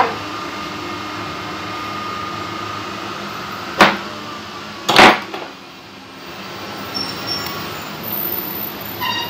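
Three sharp clicks over a steady background hum, the loudest about five seconds in, with smaller ticks near the end.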